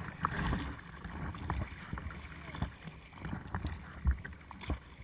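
Sea water splashing and slapping against the bow of a Perception Essence 17 sea kayak as it is paddled through choppy water. The sound comes in irregular splashes and low thumps, the loudest about four seconds in.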